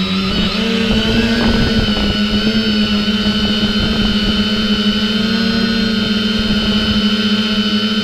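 Drone's electric motors and propellers humming at a steady pitch in flight, on freshly balanced props. A rougher rustling noise joins the hum in the first couple of seconds.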